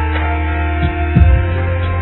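Background music: a steady low drone with sustained tones and plucked low notes.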